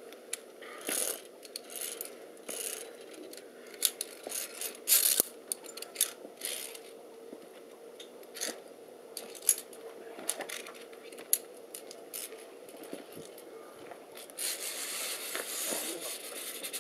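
Irregular small clinks, taps and scrapes of hard objects, with a faint steady hum underneath and a denser rustling hiss setting in a little over three-quarters of the way through.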